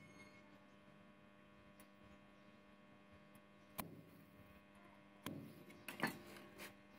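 Steady electrical mains hum from an arc welder, broken by a few sharp crackles as the welding rod strikes an arc to tack rusty chain links onto a steel disc: one about four seconds in and a cluster near the end.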